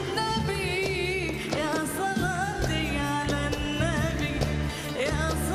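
A woman singing a classical Arabic tarab song with band accompaniment, her ornamented, wavering melody lines carried over steady bass notes.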